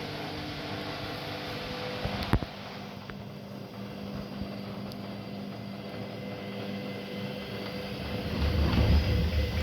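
Haier HW100-1411N washing machine running with a steady motor hum, a sharp click about two seconds in, and a louder low rumble building near the end as the drum speeds up.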